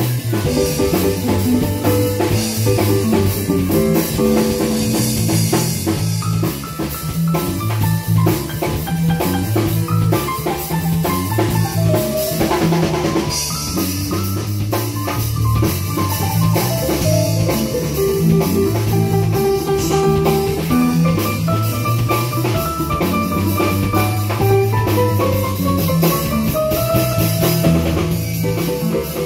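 Blues played on a Roland Juno-Gi synthesizer keyboard over a drum-kit beat, with a repeating bass line and a lead line that bends up and down in pitch in places.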